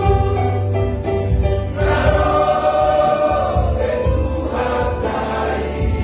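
Batak Christmas gospel song: several voices singing long held notes in harmony over instrumental accompaniment with a steady bass.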